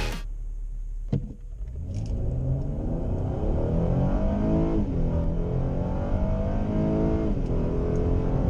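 Acura RDX engine accelerating hard from a standstill, heard inside the cabin: the pitch climbs steadily, falls for an upshift about five seconds in, climbs again and falls for a second upshift near the end.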